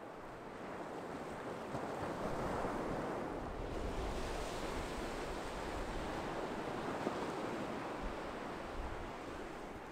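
Ocean surf: a wave breaks and washes up the beach, swelling about two seconds in and easing off near the end, with a low wind rumble on the microphone.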